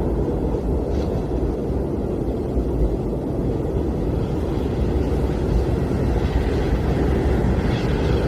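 Blizzard wind blowing steadily with a deep, rumbling, gusty texture, with a faint higher hiss of wind swelling in about six seconds in.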